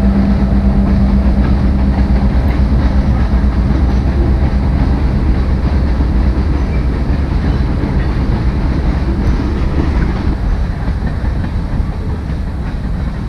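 A train passing on its rails: a loud, steady low rumble with the clatter of wheels over the track, growing fainter over the last few seconds.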